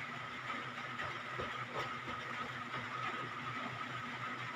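Steady low hum with hiss, the running background between beep-test signals; no beep sounds.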